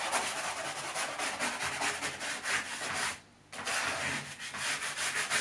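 Fast, continuous scrubbing on a piece of car trim, working in a squirted-on fabric cleaner, with a brief pause about three seconds in.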